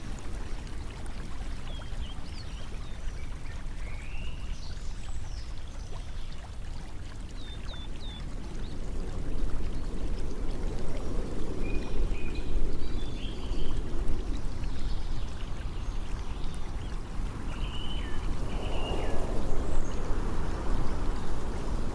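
Steady rushing of running water, growing louder about nine seconds in, with short bird chirps scattered over it.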